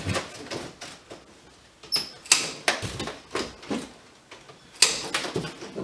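Plastic packing straps on a cardboard box being cut and worked loose, a series of short, sharp snaps and scrapes at irregular intervals, with cardboard and strapping rustling.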